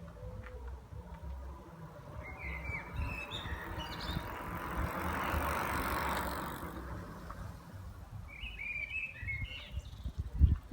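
A 36-volt electric fat bike with 4-inch tyres riding past: a rush of tyre and hub-motor noise that rises and fades, loudest about halfway through. Birds chirp before and after, wind rumbles on the microphone, and a sharp thump comes near the end.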